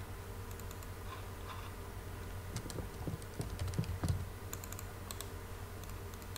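Typing on a computer keyboard: a short, irregular run of keystrokes in the middle, over a steady low hum.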